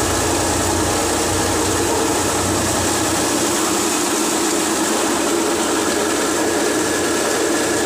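Belt-driven grain thresher running steadily under load, powered by an old Fiat 480 tractor, with a constant mechanical whirr and hum as threshed grain pours out. Its low rumble drops away about three seconds in.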